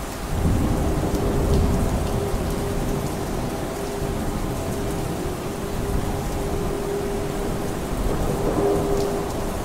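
Heavy steady rain with a long rolling rumble of thunder. The thunder swells about half a second in and stays loudest for a couple of seconds. It keeps rumbling under the rain and swells again near the end.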